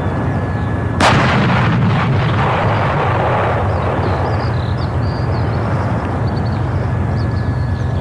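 A single shot from a PzH 2000 155 mm self-propelled howitzer about a second in: a sharp crack, then a rolling boom that dies away over a few seconds. A steady low rumble runs underneath.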